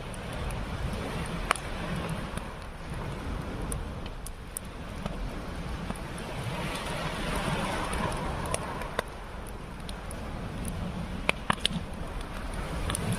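Campfire crackling with a few sharp pops, one about a second and a half in and three in quick succession near the end, over a steady rushing wash of sea surf and wind on the microphone that swells midway.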